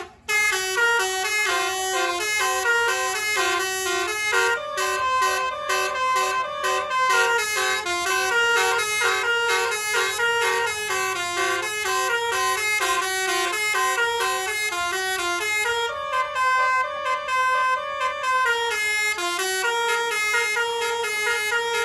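Tour bus's 'telolet' basuri horn playing a fast melody: clear horn notes stepping up and down in quick succession, with hardly a break between them.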